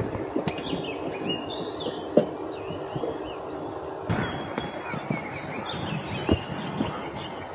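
Birds singing, with repeated short warbling chirps, over a few light knocks and clicks from handling on a boat deck; the sharpest knocks come about two seconds in and near the end.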